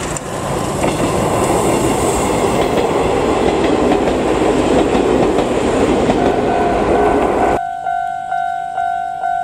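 Izuhakone Railway 5000-series electric train passing close by, its wheels rumbling and clacking over the rail joints. After a sudden cut near the end, a level-crossing warning bell rings about twice a second.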